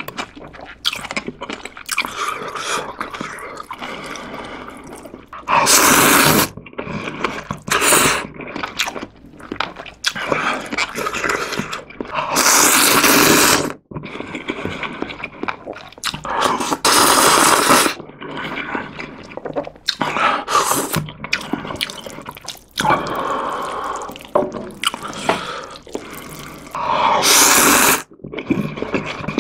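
Close-miked slurping of soupy instant ramyeon noodles: about four loud slurps of roughly a second each, with wet chewing and mouth sounds between them.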